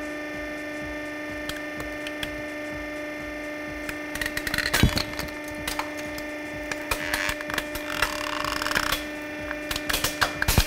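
Plastic toy quad bike cracking and snapping as a hydraulic press crushes it, over the steady hum of the press. Scattered snaps start about four seconds in, with one loud crack soon after, then a stretch of crunching and a run of sharper cracks near the end.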